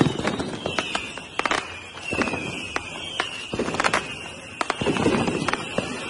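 Fireworks going off: many irregular sharp bangs and crackles over low thumps, with a high whistling tone that keeps dipping in pitch.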